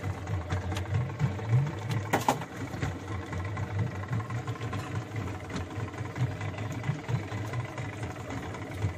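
A boat's engine idling steadily with a low, even throb, and one sharp knock about two seconds in.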